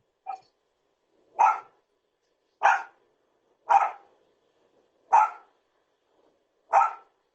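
A dog barking: a short faint bark, then five loud single barks, evenly spaced about one every second and a half.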